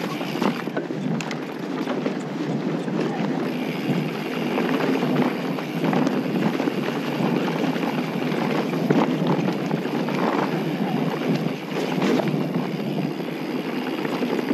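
Steady wind noise on the microphone over the rolling rumble of mountain-bike tyres on a gravel road.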